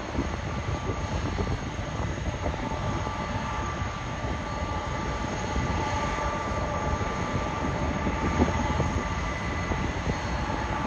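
Jet engines of a taxiing Boeing 767-300ER running at low power: a steady whine over a continuous rumble.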